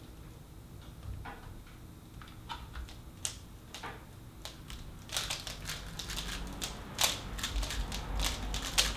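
Plastic speed cubes being turned by hand, the layers clacking as they turn: a few separate clicks at first, then rapid continuous clicking from about five seconds in as fast solving gets going.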